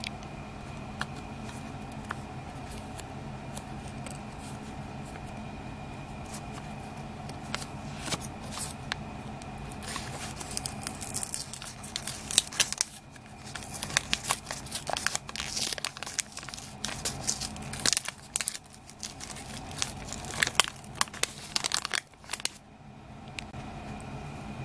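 A sealed packet of photographs being opened by hand: the wrapper crinkles and tears in dense, irregular rustles from about ten seconds in until near the end, over a steady low hum.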